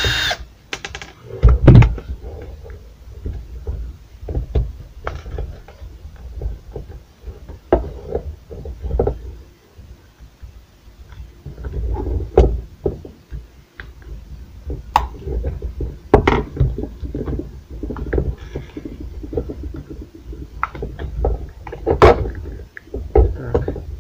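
A cordless screwdriver's whir cuts off at the very start; then irregular knocks, clicks and rattles of a Bort angle grinder's plastic housing and parts being handled and pried apart, loudest just under two seconds in.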